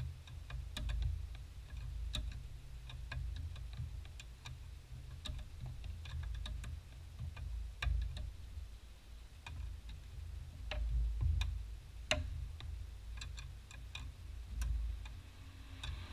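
Hand ratchet clicking in short, irregular runs as nuts at the brake master cylinder are turned, over a low background rumble.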